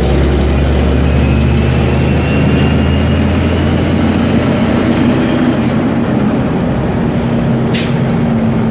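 Heavy truck running on the road, a steady engine drone with road noise; the deepest part of the drone eases off about halfway through. A brief hiss comes near the end.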